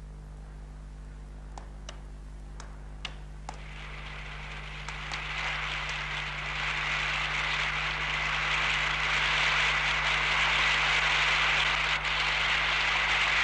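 A few sharp clicks of a table tennis ball in a rally, then applause from a large crowd that swells up from about four seconds in and goes on loud, over a steady low hum.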